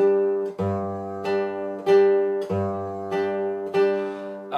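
Nylon-string classical guitar played in a waltz strum on one held chord: a thumbed bass note, then two finger strums down across all the strings, repeating in three-beat time about once every two seconds.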